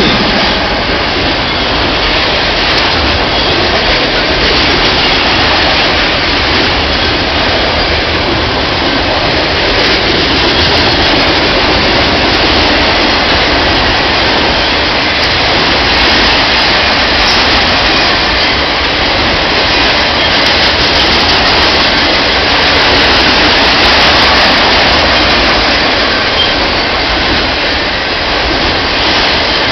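Auto rack freight train rolling past close by: a loud, steady rush and rumble of the rail cars' wheels on the track.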